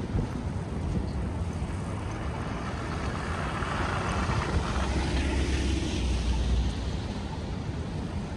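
City street ambience in a snowstorm: wind buffeting the microphone over a steady rumble of traffic, which swells for a few seconds around the middle.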